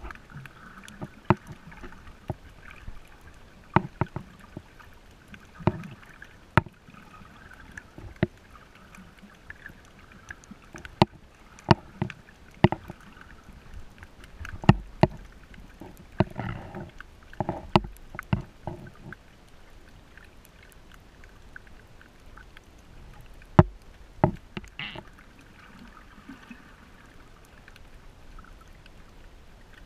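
Muffled underwater sound picked up by a camera held underwater while snorkeling: a low wash of moving water broken by irregular sharp clicks and knocks, some in quick pairs.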